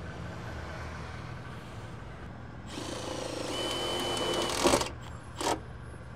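A cordless power drill runs for about two seconds, rising to a sharp click as it stops, then gives a second brief burst. A steady low hum runs underneath.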